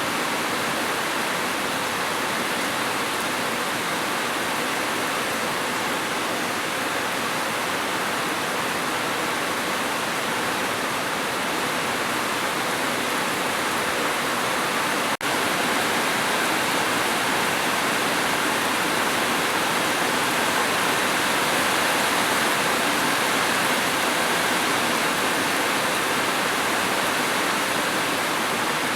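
Steady, dense rainfall: an even, unbroken hiss of heavy rain, with one very short dip about halfway through.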